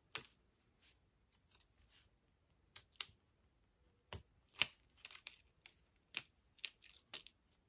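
Weeding pin picking and peeling small cut pieces of holographic vinyl off the backing sheet: faint, irregular ticks and crackles, with a sharper click about four and a half seconds in.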